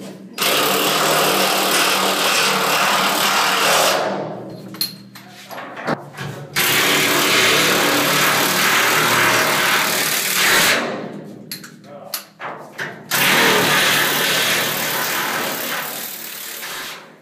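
Cordless power drill running at speed in three long runs of about four seconds each, with short pauses and a few clicks between. It is driving fasteners at the base of a storm-shelter wall.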